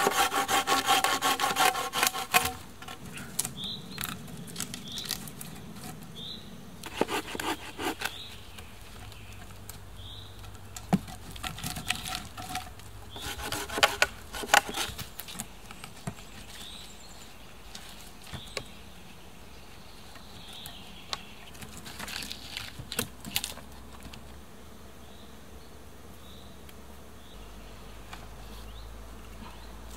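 Hand saw cutting through a wooden pole in quick, even strokes for the first two seconds or so. After that come several short bouts of sawing and scraping on the wood, with quieter gaps between them.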